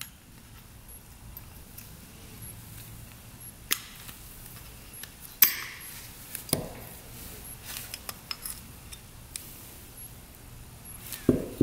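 A few sharp clicks and light clinks of small metal carburetor parts being handled while the float and needle are checked, spaced a second or more apart, the loudest about five seconds in.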